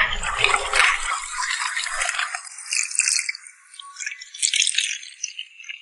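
Chopsticks beating eggs in a stainless steel bowl: a rapid clattering rattle against the metal for the first two seconds or so. Then come scattered lighter clinks and liquid sounds as the beaten egg is poured over clams in a metal bowl.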